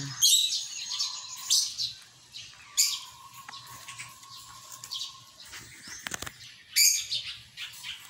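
Sun conures giving short, shrill calls, several separate calls, loudest just at the start and about seven seconds in.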